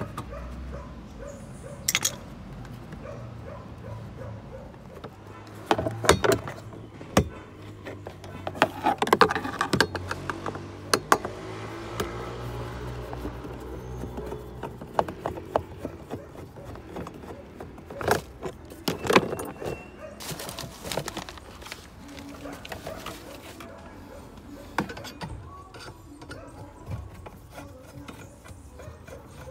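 Screwdriver and hand-tool work on a car's dashboard trim: irregular clicks, taps and clinks of the screwdriver and screws against plastic panels and metal brackets, busiest in the middle of the stretch.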